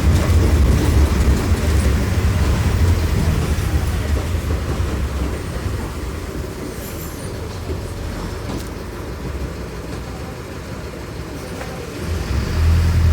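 Mercedes-Benz OM-904LA four-cylinder turbodiesel engine of an OF-1418 bus running, its low engine note fading and growing quieter over about ten seconds, then coming back up loudly near the end.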